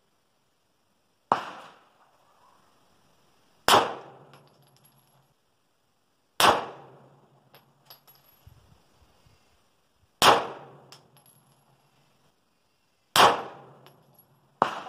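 Taurus G3 TORO 9mm Luger pistol firing five slow, aimed single shots, two and a half to four seconds apart, each report ringing off briefly. A quieter sharp report comes just before the end.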